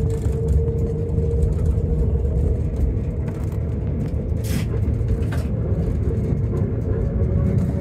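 Narrow-gauge electric train of the Yellow Train running along the track: a steady low rumble with a constant humming tone, and two sharp clicks around the middle.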